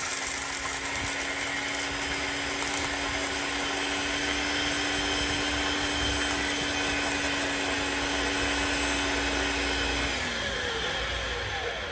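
Electric blender running steadily while grinding hard dry puppy kibble. About ten seconds in it is switched off and the motor winds down, its pitch falling as it slows.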